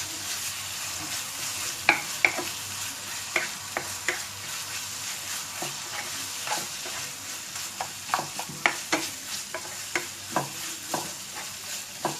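Chicken and chopped vegetables frying with a steady sizzle in a pan while a spatula stirs them, knocking and scraping against the pan in irregular clicks.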